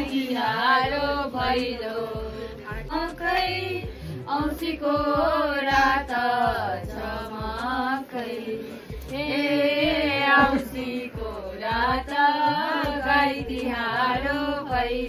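Music with voices singing a song together, over a steady accompaniment with a repeating low beat.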